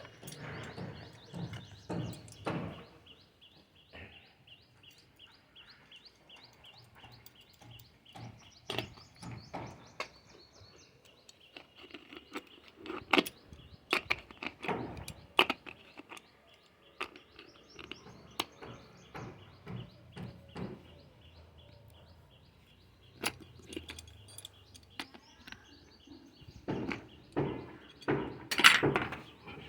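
Small birds chirping over and over in quick high notes, with scattered sharp knocks and clinks, the loudest near the end.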